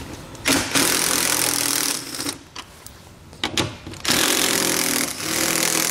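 Cordless impact driver with a 10 mm socket running fasteners out of a car's radiator shroud panel, in two bursts of about one to two seconds each, the first about half a second in, the second near the end.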